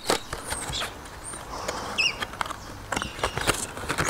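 A small folded paper booklet being handled and opened by hand: a run of light crinkles and ticks.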